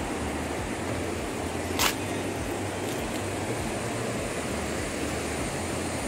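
Steady rushing noise of fast-flowing water, with a single sharp click about two seconds in.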